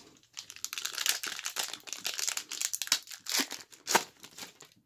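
A foil trading-card pack wrapper being torn open and crinkled, a rapid papery crackle with a sharper snap about four seconds in.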